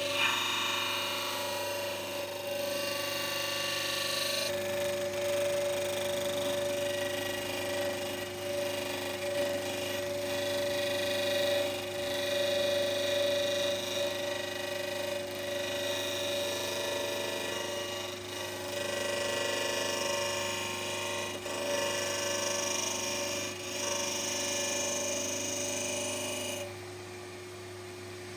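Disc sander running, its abrasive disc grinding the edge of a black plastic recoil-pad back plate, the grinding noise rising and falling as the plate is worked around against it. Near the end the grinding drops away and the motor's hum runs on.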